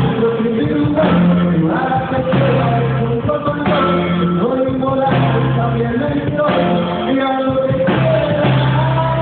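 Norteño band playing a corrido live: steady bass notes under held melody notes.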